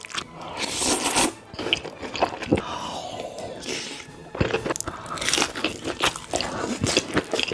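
Close-miked eating sounds: slurping spicy chicken noodle soup and its broth from a spoon, then biting and chewing a chive-and-oyster pancake, with crunching and utensil scrapes.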